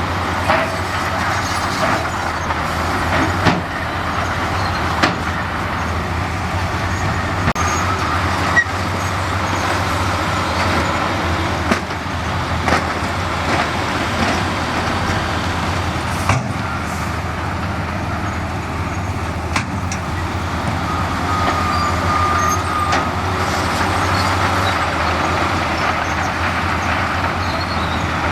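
Heavy diesel earthmoving machinery running steadily under load, with a deep engine hum and scattered sharp clanks and knocks of metal and rock, about a dozen over the stretch.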